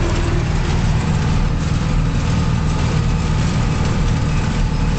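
Zetor tractor's diesel engine running steadily as the tractor drives along the road on the foot throttle, heard from the driver's seat.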